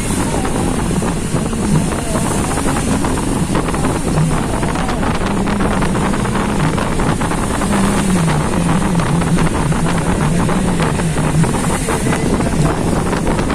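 Heavy wind buffeting on the microphone of a moving vehicle, over an engine hum that rises and falls in pitch as the vehicle drives.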